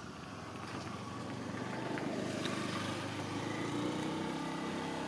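A motor vehicle's engine running steadily, growing louder partway through.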